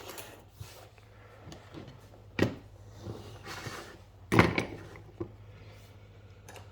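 A few sharp knocks and clicks of a steel-bodied padlock being handled for disassembly, the loudest about two and a half and four and a half seconds in, over a faint low hum.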